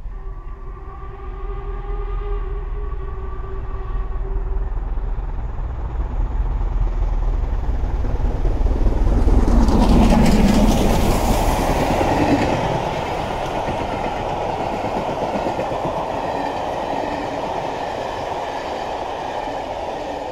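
Two LMS Stanier Class 5 4-6-0 steam locomotives, running double-headed on a passenger train, pass at speed. A steam whistle sounds for about three seconds near the start as the train approaches. The running noise then builds to its loudest about halfway through as the locomotives go by, and the coaches' wheels keep up a steady rolling noise on the rails to the end.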